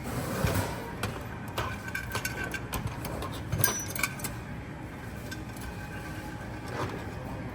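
Scattered light clicks and small metallic clinks of hand tools and hardware being handled, busiest near the start and around the middle.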